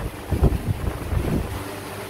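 Low rumbling with irregular muffled bumps: handling noise on a handheld camera's microphone.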